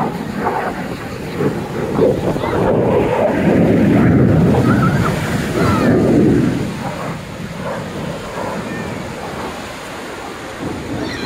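Ocean surf breaking on a beach, with wind buffeting the microphone; the rush swells about two seconds in, is loudest around four seconds, and fades after six.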